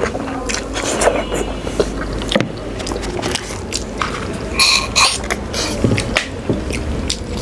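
A person eating: irregular wet chewing, lip smacks and clicks, with a brief squeak about two-thirds of the way through.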